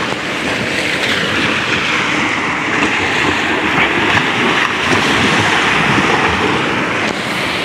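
Small sea waves breaking and washing up over sand and rocks at the water's edge, a steady rushing surf. It cuts off suddenly near the end.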